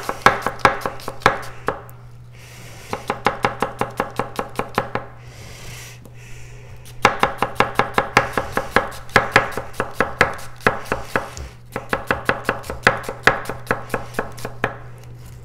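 A 240mm kiritsuke gyuto thin-slicing an onion on a cutting board: quick runs of crisp knife strokes, about five or six a second, each ending in a tap on the board, with short pauses between runs.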